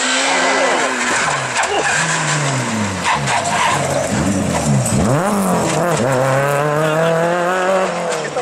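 A rally car's engine being driven hard. Its pitch drops in steps over the first few seconds as it comes off the throttle and changes down, dips and flares sharply about five seconds in, then climbs steadily as the car accelerates.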